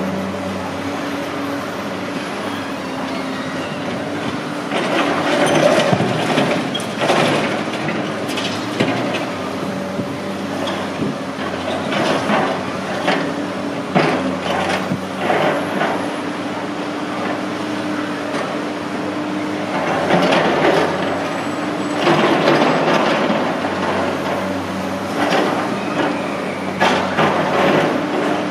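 Tracked hydraulic excavator's diesel engine running steadily under load, with repeated clanks, scrapes and crashes as its steel bucket handles and drops large slabs of broken concrete.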